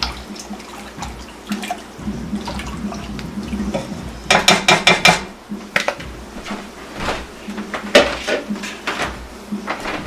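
A utensil clinking against a pot as sugar is stirred into hot water to dissolve it into syrup. About four seconds in comes a quick run of about half a dozen clinks, with more scattered clinks after it.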